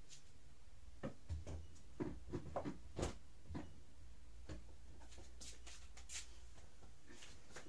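A few short, soft knocks and clicks of small objects being handled, over a low steady hum. After the middle they give way to fainter light ticks and rustles.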